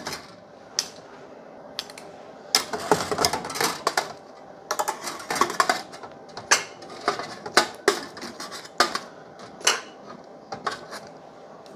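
Metal tongs clinking and scraping against a metal oven tray and rack: a run of irregular clicks, clinks and short scrapes.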